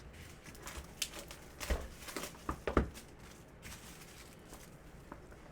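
A sealed box of trading cards being opened and handled: a run of short rustles, scrapes and taps over the first three seconds, then only quiet handling.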